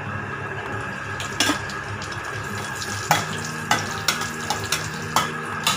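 Cashew nuts and raisins sizzling as they fry in ghee in a kadai, with about seven sharp clicks as they are stirred against the pan.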